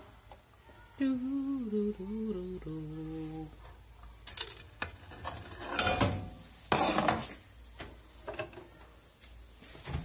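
A woman hums a short tune of a few stepping notes for about two and a half seconds. Then come several sharp clinks and knocks as a ceramic plate is lifted off the microwave's glass turntable and set down.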